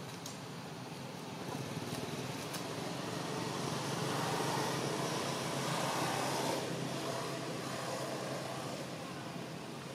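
A road vehicle passing by: a steady engine and tyre noise grows louder over a few seconds, is loudest around the middle, then fades away.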